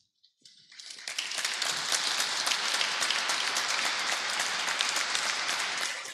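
Audience applauding: many hands clapping, swelling up within the first second, holding steady, then cutting off suddenly at the end.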